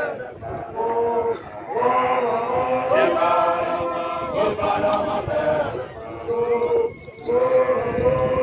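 Basotho male initiates (makoloane) chanting an initiation song together, in unison. The song comes in long held phrases, with brief breaks between them.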